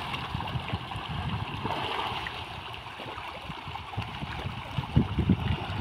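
Water splashing as a dense school of fish thrashes at the surface: a steady rush of water with many small, irregular splashes and a few louder ones near the end.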